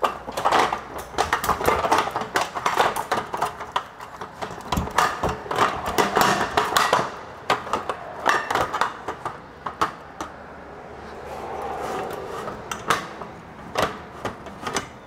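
Folding aluminium camping table being set in place: a rapid clatter of light clicks and knocks for the first several seconds, thinning to scattered knocks later.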